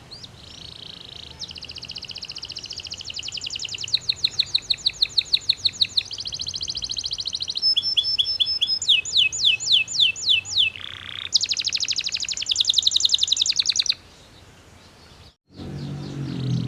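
Belgian canary singing a long, loud song of rapid trills, switching every second or two between fast rolls and slower sweeping notes. It stops about 14 seconds in and starts up again near the end over a low hum.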